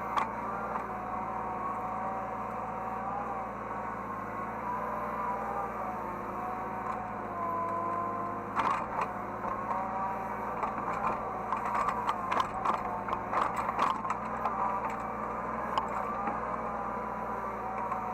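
Hydraulic excavator heard from the operator's cab: engine and hydraulic pump running steadily with a whine that rises and falls in pitch as the machine is worked. From about halfway through comes a run of metal clanks and knocks.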